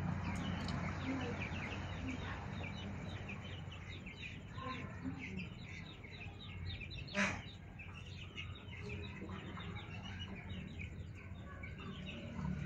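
Chickens clucking, with many short high chirps throughout and one louder sharp call about seven seconds in.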